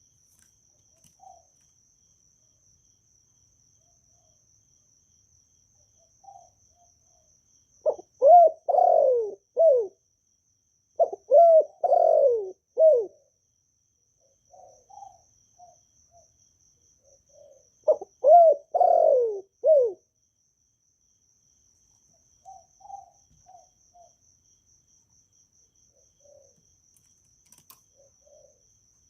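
Spotted dove cooing: three loud phrases of several notes each, with a few soft single coos between them, over a faint steady insect trill.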